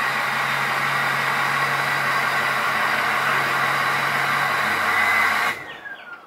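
Ford 6.0 Power Stroke turbo-diesel V8 running, its steady turbo whistle and hiss the loudest part of the sound. About five and a half seconds in the sound cuts off abruptly, leaving a whine that falls in pitch.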